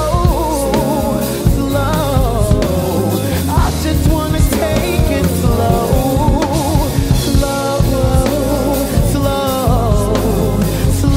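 Slow R&B song played by a band, with drum kit and deep bass under a wavering melodic line that sounds like wordless sung runs.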